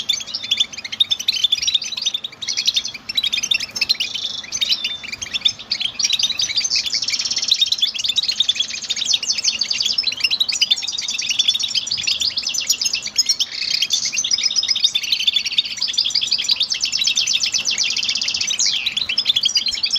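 European goldfinch singing: a fast, continuous twittering song of rapid chirps and trills, busier and more unbroken from about a third of the way in.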